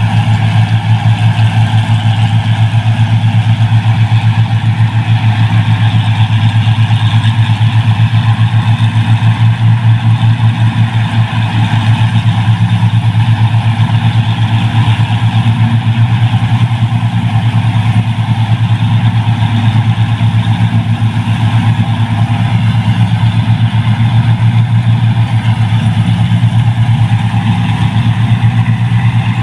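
Combine harvester engine running steadily while harvesting rice, a loud, even, deep drone with no change in speed.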